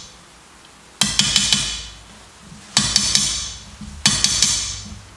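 A small hammer tapping a chisel in quick runs of several light, ringing strikes, three runs about a second and a half apart, as a brand name is hand-engraved into a kitchen knife blade. Background music with a low beat plays underneath.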